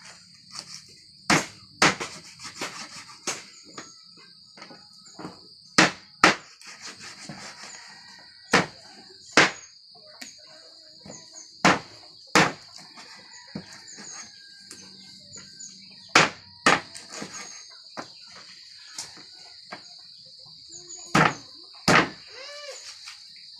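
A large knife chopping through plucked poultry onto a wooden cutting board: sharp single chops, often in quick pairs, every few seconds. A steady high insect buzz runs underneath, with a short animal call near the end.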